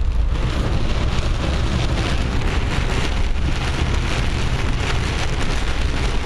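Heavy rain beating on the roof and windshield of a moving vehicle, heard from inside, over a steady low rumble of the vehicle on the wet road.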